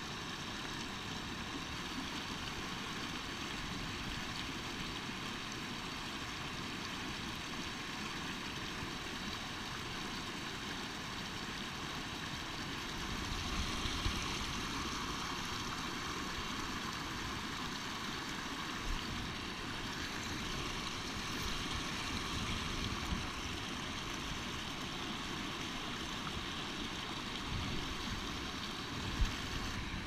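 Creek water running over rocks and riffles, a steady rushing noise, with an occasional soft knock.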